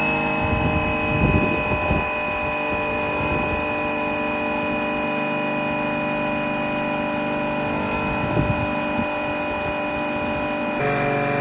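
Electric pressure washer motor running with a steady hum. Two brief patches of rougher, louder noise break in, and the pitch and level shift suddenly near the end.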